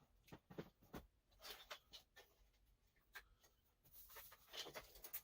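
Faint scattered clicks and light scrapes of hands handling motorcycle parts, with a denser rustle near the end.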